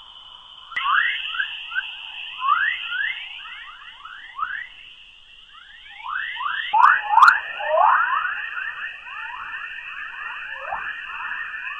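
Space plasma-wave radio data played as sound: a dense stream of short rising chirps, several a second, over a steady high hiss. The chirps grow denser about seven seconds in, with two sharp clicks at about the same time.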